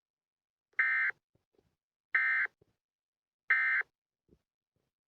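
Emergency Alert System end-of-message code: three short, identical buzzing digital data bursts about a second and a half apart, signalling that the alert has ended.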